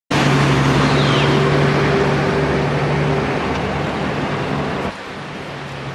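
Street traffic: a nearby motor vehicle's engine hums over a steady rush of road noise, then the sound drops suddenly about five seconds in.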